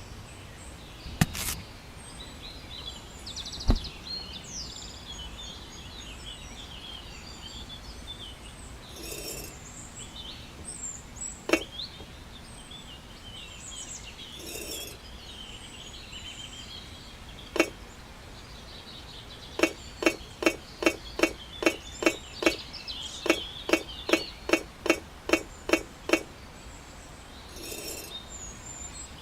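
Small birds chirping on and off throughout, with single sharp knocks now and then. In the second half comes a quick run of about fifteen knocks at two to three a second.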